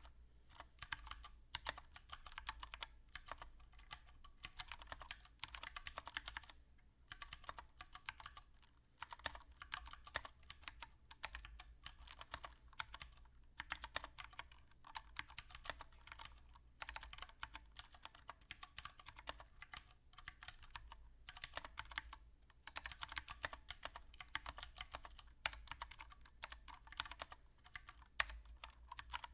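Typing on a Mistel MD770BT mechanical keyboard with Cherry MX Brown switches: a fast, uneven run of key clicks with a few brief pauses.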